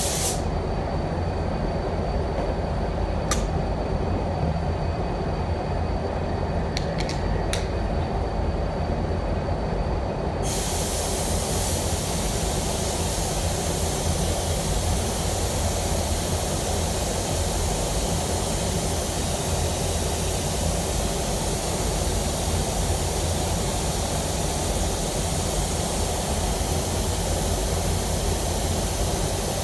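Paint booth air running with a steady low rumble throughout. About ten seconds in, an air-fed automotive spray gun starts hissing as it sprays waterborne basecoat onto a bumper, and keeps going; a few faint clicks come before it.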